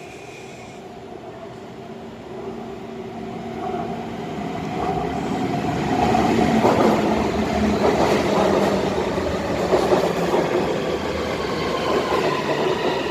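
Taipei Metro C301 electric train arriving at a station. The wheels' rumble on the rails grows louder over the first six seconds, then the Bombardier IGBT VVVF inverter's whine slides slowly down in pitch as the train brakes.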